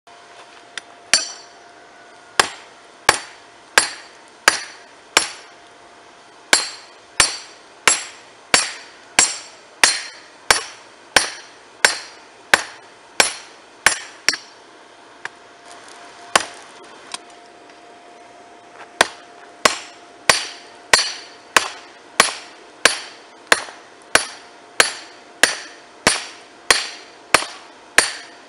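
Hand hammer striking an orange-hot railroad spike on a chain-wrapped steel block anvil: a steady run of sharp metal clanks, about one and a half a second, forging the spike's blade. About halfway through the blows pause for a few seconds with a few lighter taps, then the hammering resumes.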